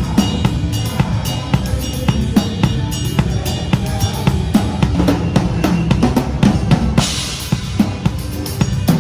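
Pearl Reference drum kit played in a steady groove, bass drum and snare driving the beat, with a cymbal crash about seven seconds in, over other music.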